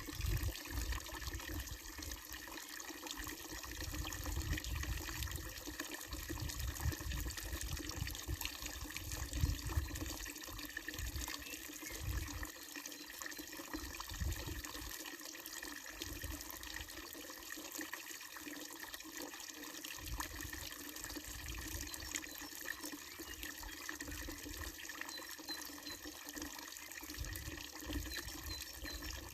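Water running steadily from a wooden trough fountain and splashing into its basin, with low rumbles that come and go over the first twenty seconds or so.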